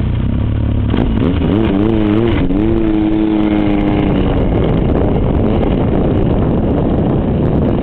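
Yamaha snowmobile engine revving and pulling away across the snow: the pitch wavers up about a second in, holds steady for a couple of seconds, then fades into a steady broad noise as the sled moves off.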